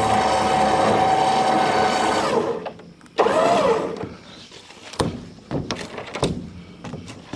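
A motorised machine runs with a steady whine, then cuts off a little over two seconds in. A short loud burst with a brief gliding tone follows, then several sharp knocks.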